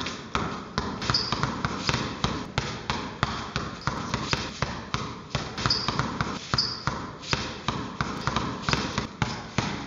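Basketball dribbled rapidly on a hard tiled floor, a steady run of sharp bounces at about three a second, with some passes between the legs.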